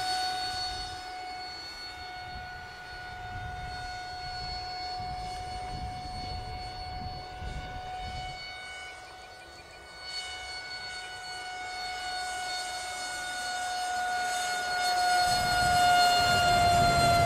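Twin 70 mm electric ducted fans of an RC Boeing 737 MAX 8 model, a steady high-pitched whine. It fades a little about halfway through, then grows louder as the model comes overhead, its pitch dipping slightly at the end.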